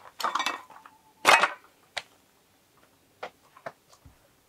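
A run of sharp clicks and knocks: a clattering burst at the start, the loudest knock about a second in, then a single click and a few fainter ticks.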